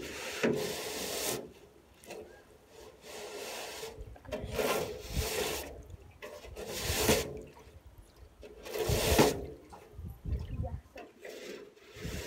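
Long-handled brush scrubbing the inside of a metal wheelbarrow, in about six rasping strokes roughly two seconds apart.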